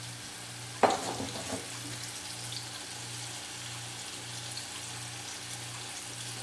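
Flour-dredged pork chunks sizzling steadily as they brown in hot oil in a skillet. There is a sudden louder burst about a second in that fades within about half a second.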